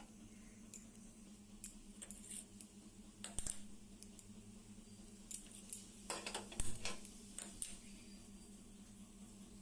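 Scattered clinks and knocks of kitchen utensils and dishes being handled, the loudest cluster a little past halfway, over a steady low hum.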